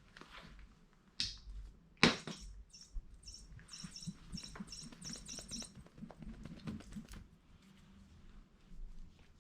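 Chirping bird cat toy giving a quick run of high-pitched electronic chirps for a few seconds, right after a sharp knock. Light scuffling and knocks as the toy is batted and tumbled about.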